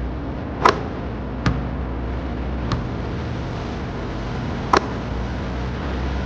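A basketball hitting the metal hoop with a short ringing clang twice, under a second in and again near five seconds. Between them come two lighter bounces of the ball on the court, all over a steady low traffic rumble.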